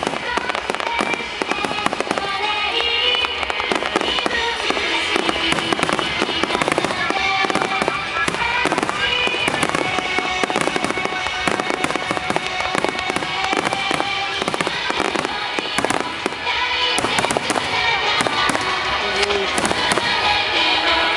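Aerial fireworks shells bursting and crackling in a dense, continuous barrage, with music playing over loudspeakers underneath.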